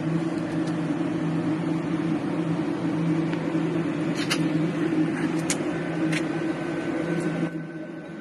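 Arc welding: a steady buzzing hiss over a low hum, with a few sharp crackles, stopping abruptly near the end.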